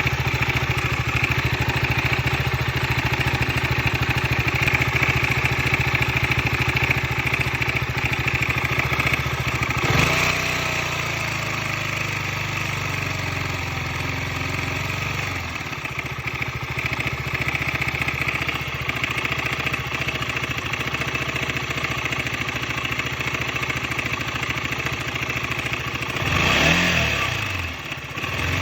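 2015 KTM 125 Duke's single-cylinder engine idling with a loud, dull clatter from inside the engine, the sign of a failing cam chain tensioner. There is a sharp knock about a third of the way in, the idle note changes about halfway, and near the end the revs briefly rise and fall.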